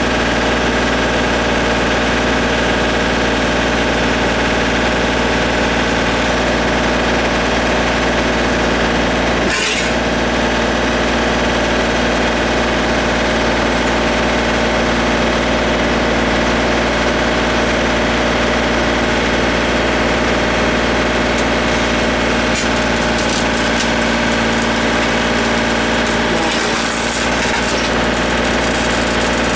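John Deere compact tractor's diesel engine running steadily at an even speed. A single brief clunk about ten seconds in.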